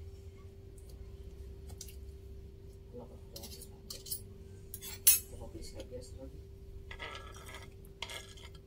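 Kitchen knife tapping and cutting against a wooden cutting board, with a fork clinking, as boiled chicken liver and gizzard are sliced; a sharp knock comes about five seconds in. Near the end the knife scrapes across the board, pushing the slices off into a plate.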